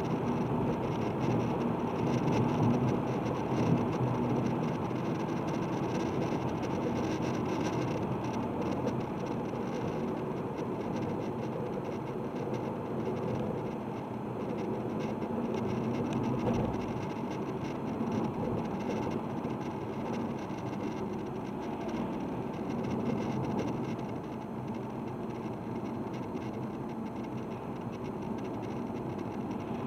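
Diesel car running steadily, a continuous engine and road rumble with no sudden changes.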